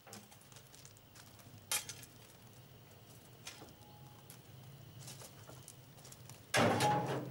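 Small steel narrow-gauge ballast wagons rolling slowly as they are pushed by hand, with a low rumble and a few sharp clicks from the wheels on the rails. About six and a half seconds in, a loud metallic clatter as a shovel is thrown into the steel wagon.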